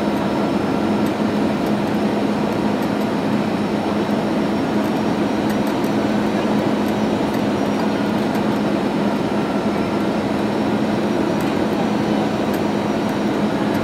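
Steady cabin noise of a jet airliner descending on approach, heard inside the cabin beside the wing-mounted engine. The engine drones with a constant low hum over a rush of air.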